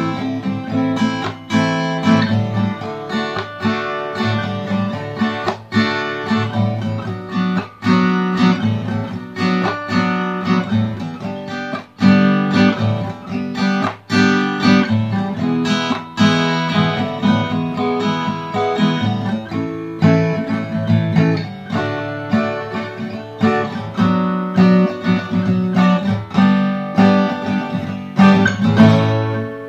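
Cort AD810 OP steel-string dreadnought acoustic guitar, on its factory strings, strummed through a continuous run of chords.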